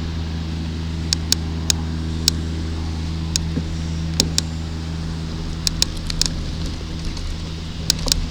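Loaded touring bicycle being ridden on a road: a steady low rumble with scattered sharp ticks and rattles.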